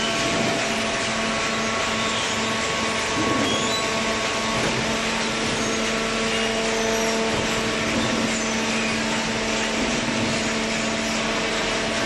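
A large hydraulic cardboard baler and its power unit running, a steady machine hum and whine over a broad rushing noise.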